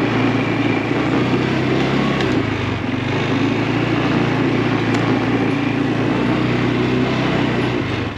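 ATV engine running steadily under light throttle while riding along a rough forest trail, dropping back slightly right at the end.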